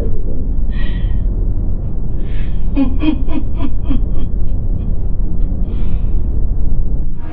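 A person laughing in a short run of breathy 'ha-ha' bursts that fall in pitch and fade, with gasping breaths before and after, over a steady low rumble.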